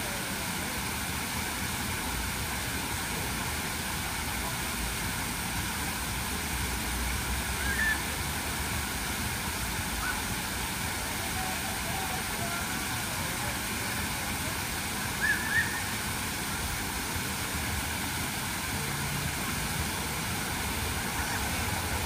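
Water cascading steadily over the tiers of a large outdoor fountain, an even, continuous splashing rush. Two brief high-pitched sounds stand out over it, one about eight seconds in and one about fifteen seconds in.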